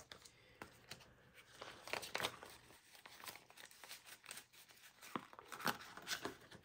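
Paper euro banknotes rustling and crinkling as they are handled and tucked into a cash-budget envelope, in short irregular rustles with a few sharper clicks.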